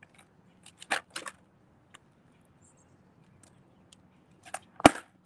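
Freestyle skateboard clacking on the ground during a trick attempt: a few light taps about a second in, then a sharp clack near the end as the board comes down.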